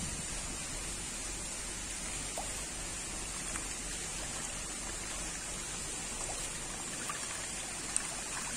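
Steady trickling and splashing of pond water stirred by a crowd of feeding Nile tilapia, with a few small, sharp splashes scattered through it, the sharpest near the end.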